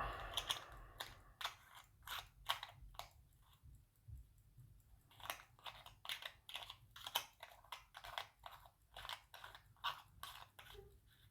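Irregular small clicks and crunchy scrapes of a pocket watch's bezel and crystal being handled and pressed back onto the case, with a short lull about a third of the way in.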